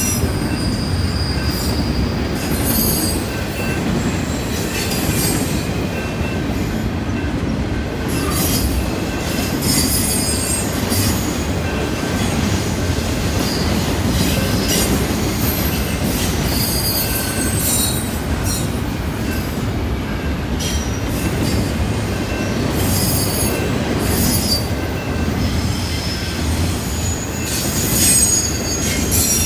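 Canadian Pacific freight train rolling past: a steady low rumble of wheels on rail, with high-pitched wheel squeals that flare up and die away every few seconds.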